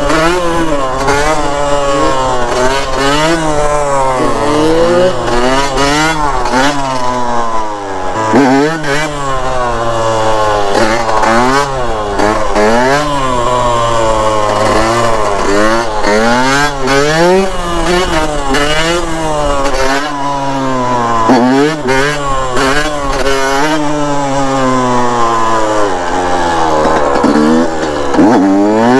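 Dirt bike engine revving up and dropping back again and again as the rider works the throttle through the gears, pitch climbing and falling every second or two.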